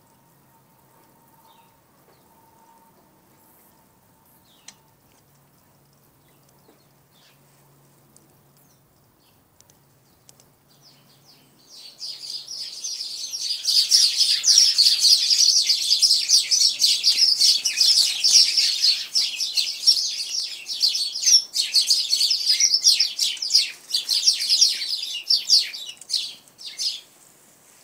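Small birds chirping rapidly and loudly, starting about twelve seconds in and breaking off shortly before the end; before that only a faint hum.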